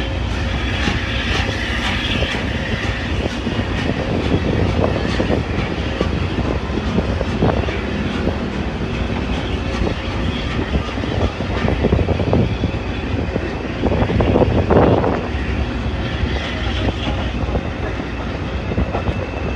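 Passenger coaches rolling past on the rails: a steady rumble of wheels on track with irregular clicks and knocks as the wheels run over rail joints, the knocks heaviest about fifteen seconds in.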